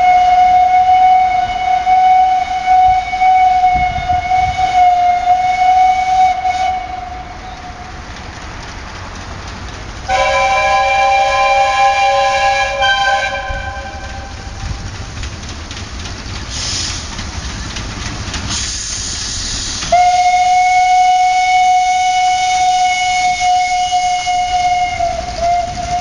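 Train whistle sounding two long steady blasts, with a multi-note train horn chord between them about ten seconds in and a burst of hiss shortly before the second blast.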